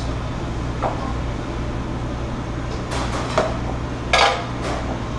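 Metal cookware and utensils clinking and clanking a few times, the loudest clank near the end, over the steady hum of a kitchen ventilation hood.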